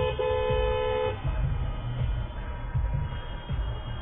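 Car horn honked twice, a quick tap and then a steady blast of about a second, over a low road rumble from a moving car.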